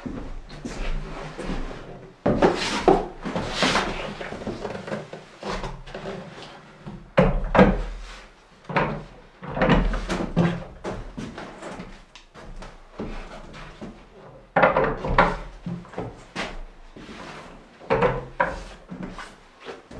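A wooden kitchen base cabinet being handled and moved on a plank floor: irregular wooden knocks and bumps mixed with scrapes and shuffling as it is tilted, shifted and set down.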